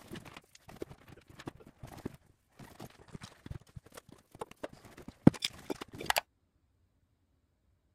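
Handling and packing a canvas backpack: fabric rustling with small irregular knocks and taps, the loudest knock about five seconds in. The sound cuts out completely about six seconds in.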